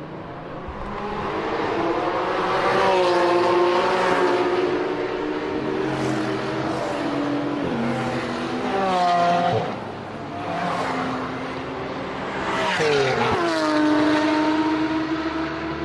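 High-performance sports car engines accelerating hard one after another. Their notes climb in pitch as they rev, then fall away, with a sharp drop about ten seconds in.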